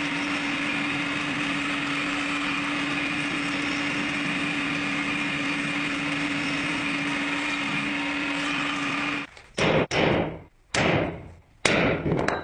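Electric power tool motor running steadily with a constant hum and a hiss of grinding noise, cutting off about nine seconds in. After it come about four short, loud bursts that each die away quickly.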